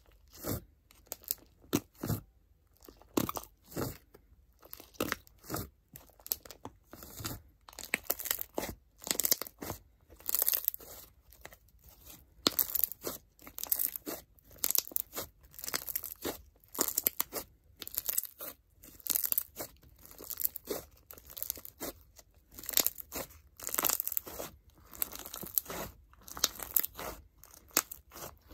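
Regina Slime's block clear crunch slime, a jiggly clear base, squeezed and kneaded by hand, crunching and crackling in quick irregular bursts, a couple to several a second.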